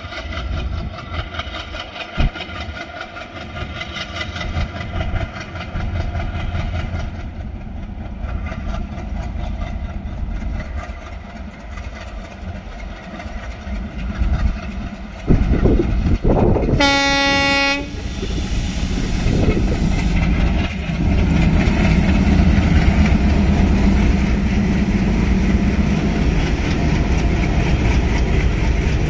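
Twin ALCO WDM3A diesel locomotives working hard up a gradient, their engine sound growing louder as they approach. A short, loud horn blast comes a little past halfway, then the engines' heavy chugging rumble as they pass close by.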